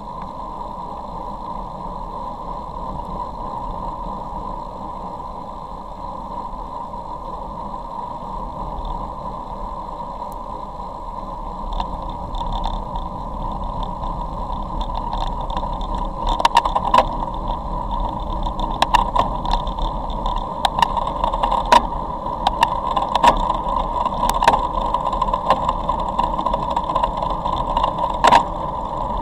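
Wind and road noise picked up by a camera mounted on a moving road bike on a wet road: a steady rush that grows louder about halfway through. In the second half, irregular sharp clicks and knocks cut through it.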